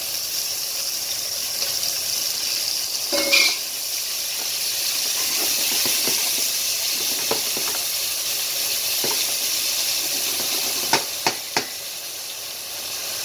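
Diced onion sizzling in hot bacon fat and olive oil in a stainless steel pan, stirred with a wooden spoon. There is a louder clatter about three seconds in, and three sharp knocks close together near the end.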